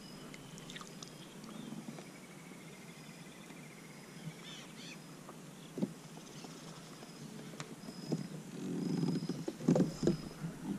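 Quiet lakeside ambience with a bird's wavering trill for a few seconds, and scattered clicks and knocks from fishing rods and gear being handled on a plastic kayak. The handling grows into a louder rustle with knocks about nine seconds in.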